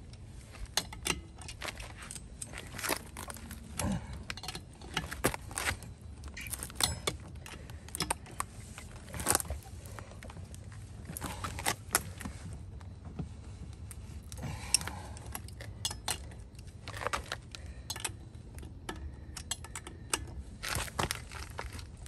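Hand socket ratchet clicking in short runs as the lug nuts on a travel-trailer wheel are tightened, with light metallic clinks of the tool on the nuts.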